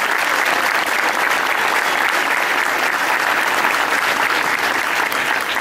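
Audience applauding steadily: dense clapping from many hands in a hall.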